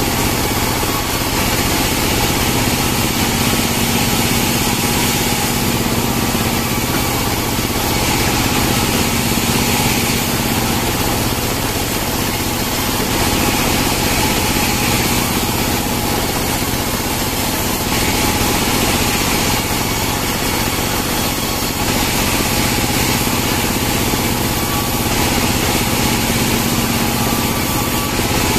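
Band sawmill running steadily while it saws Merkus pine logs into slabs and boards. The cutting noise swells and fades every few seconds as each pass goes through the log.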